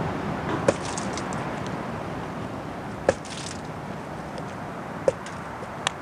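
A small hatchet's blade knocking down through a raw whole chicken onto a cutting board as the bird is split down the middle for butterflying. A few sharp knocks come a second or two apart, over a steady rush of background noise.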